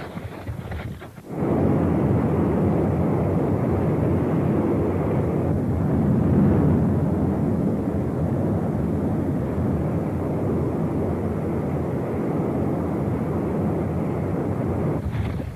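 Volcanic rift-zone fissure eruption: a loud, steady, deep rushing noise that starts abruptly about a second in.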